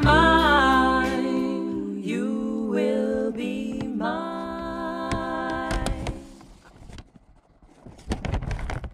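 Background music with a sung vocal melody over held, sustained notes, fading out about six seconds in. A few short crackles follow near the end.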